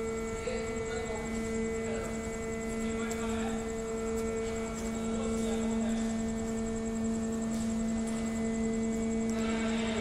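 Steady electric machinery hum from wagon tippler plant equipment: a low constant tone with a higher overtone over a level background noise.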